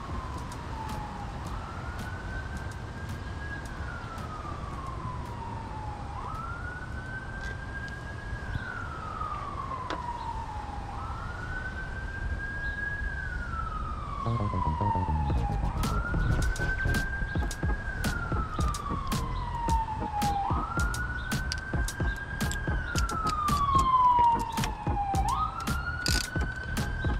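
Emergency-vehicle siren wailing, a quick rise and slow fall repeating about every five seconds. From about halfway, a ratchet clicks in quick runs on the thermostat housing bolts, along with some handling knocks.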